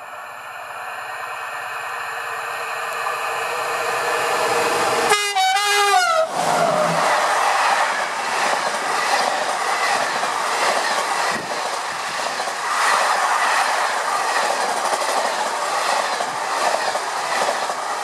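Two SNCF BB 22200-class electric locomotives approach, getting steadily louder, and sound their horn once, for about a second, around five seconds in, its pitch dropping as they pass. Then comes the steady rush and clatter of the passenger coaches going by.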